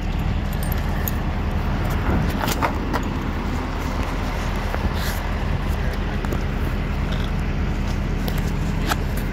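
A vehicle engine idling steadily with a low, even rumble. A few short clicks and knocks sound over it.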